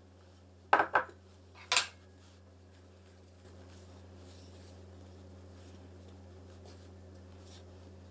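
Three sharp clinks of kitchenware against a stainless steel mixing bowl within the first two seconds. Then a utensil stirs dry flour in the bowl with a soft, steady brushing sound.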